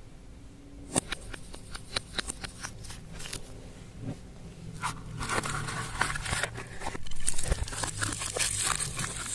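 Slime being mixed by hand with makeup: sharp sticky clicks and crackles. They come one by one at first and grow into dense crackling from about halfway in.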